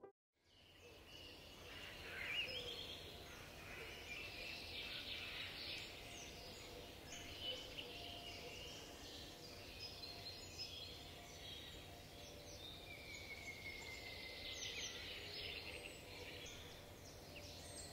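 Faint woodland birdsong: many small birds chirping and trilling, with one longer drawn-out whistle about two-thirds of the way through.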